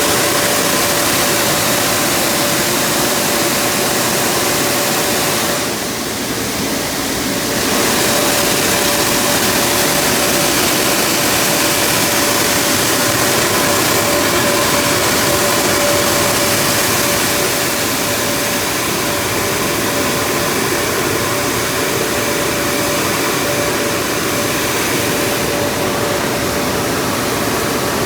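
Superior car wash dryers blowing: a loud, steady rush of air with a steady hum, which dips briefly about six seconds in and then comes back.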